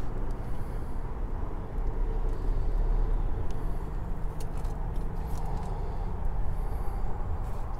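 A steady low rumble of motor-vehicle traffic, with no speech over it.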